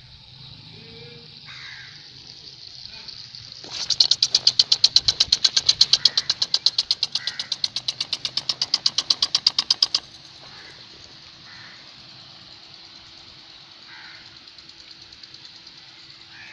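Irrigation sprinkler running with a steady hiss of water spray. About four seconds in it starts clicking rapidly and evenly, about eight clicks a second, and stops suddenly some six seconds later.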